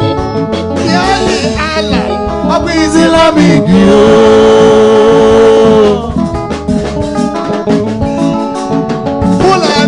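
Gospel praise song: a man singing into a microphone over a band with guitar, holding one long loud note in the middle.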